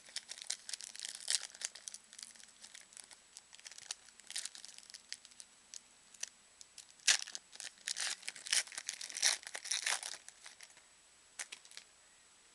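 Foil wrapper of a trading card pack being torn open and crinkled in the hands, in crackly spells with the loudest tearing from about seven to ten seconds in, then a couple of faint clicks near the end.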